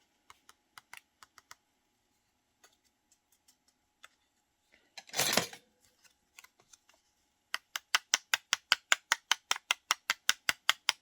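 A few light clicks and a short rustle, then from about seven and a half seconds in a fast, even run of sharp taps, about five a second: a glittered paper cutout turned over and tapped to knock off the loose glitter.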